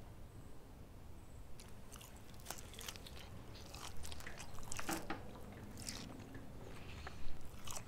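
A person chewing and biting grilled meat from a skewer: irregular wet mouth clicks and smacks that start about a second and a half in, with the loudest near the end.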